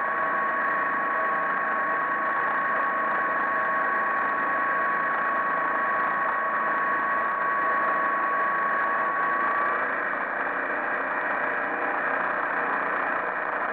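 MerCruiser 140 hp 3.0 L inline-four sterndrive engine of a 1978 Draco 20 DC running steadily with the boat under way at speed, its drone mixed with a steady rushing noise. A thin steady whine rides on top and drops out near the end.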